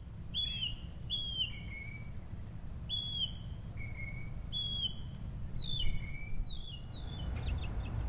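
A songbird calling over and over, short whistled notes that slide down in pitch, often each followed by a lower note, about once a second, with a quick run of notes near the end. A steady low background rumble runs underneath.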